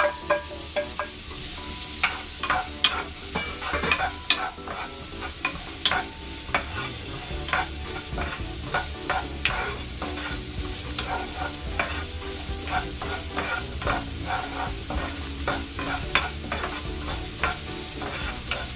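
Diced carrots tipped into hot butter and garlic in a non-stick frying pan, then sautéed: a steady sizzle with frequent irregular knocks and scrapes of a wooden spoon stirring against the pan.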